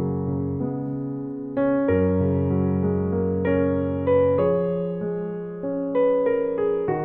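Gentle background piano music, slow chords struck every second or two and left to ring.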